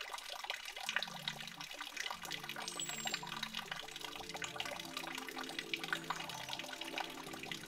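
Dense, irregular patter of water drops dripping onto foliage, over soft background music in slow, steady low notes that enter about a second in. A brief falling high whistle sounds about three seconds in.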